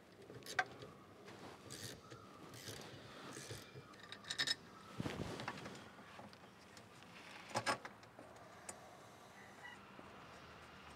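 Small metal parts handled and fitted by hand, apparently gear shift lever linkage parts being assembled: scattered sharp clicks and short scrapes, a louder knock and scrape around halfway, and a quick double click later on.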